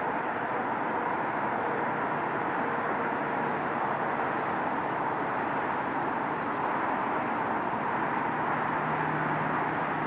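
Steady, even rumble of a diesel-powered commuter train moving away into the distance.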